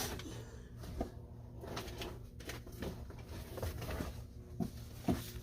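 Faint handling noise: soft rustling and a few light knocks as items are moved, over a low steady hum.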